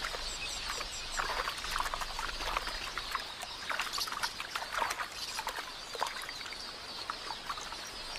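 Water splashing again and again as helmeted terrapins grab at drinking birds, over the constant high chittering of a flock of red-billed queleas.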